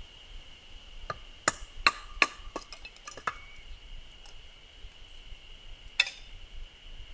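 Firewood being split by hand: a quick run of sharp wooden knocks over about two seconds, then one more single knock near the end.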